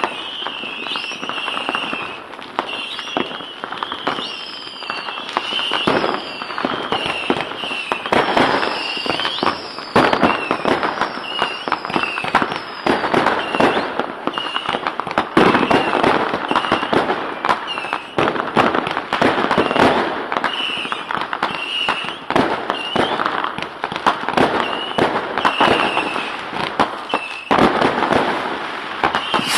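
Fireworks going off in a dense barrage: many sharp bangs and firecracker cracks close together, with short repeated whistling tones and a few gliding whistles mixed in.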